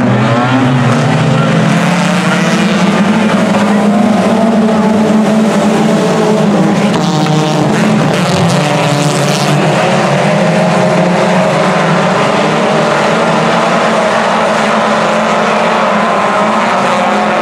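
A pack of four-cylinder dirt-track race cars running together, many engine notes overlapping in a loud, steady sound.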